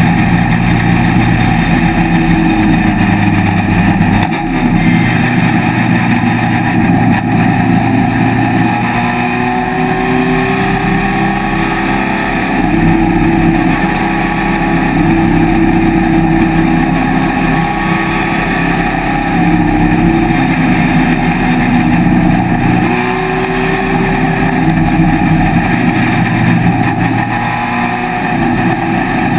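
Race car engine pulling hard at high revs, heard from the open cockpit with wind rush over it. Its pitch drops and climbs again several times as the car changes gear and comes back on the throttle.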